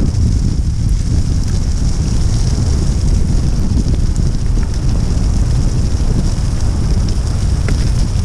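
Wind buffeting the microphone in a steady rumble over the hiss of tyres rolling fast on a wet gravel track, on a rig pulled by a running dog team.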